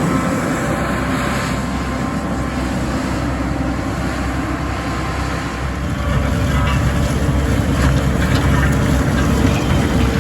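Heavy farm machinery running with a steady, loud diesel engine drone, growing louder about six seconds in, with some wind on the microphone.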